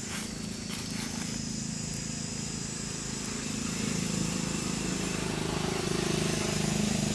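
An engine running steadily, getting louder from about halfway through, over a steady high hiss.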